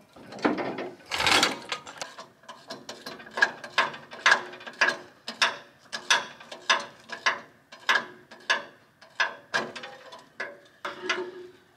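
Socket ratchet wrench worked back and forth on a stubborn rusted bolt holding down the engine crane's hydraulic tank, clicking in short strokes about twice a second, with a heavier clank about a second in.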